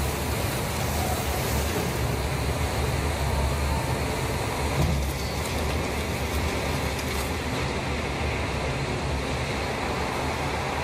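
Steady low rumble of motor-vehicle engines, running on evenly without any sharp events.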